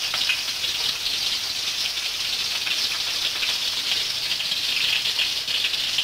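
Oil sizzling and crackling steadily in a wok as Indian mackerel fries in it.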